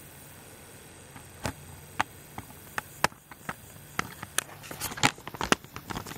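A run of irregular sharp clicks and knocks, coming faster toward the end: equipment being handled close to the microphone. No rifle shot is heard.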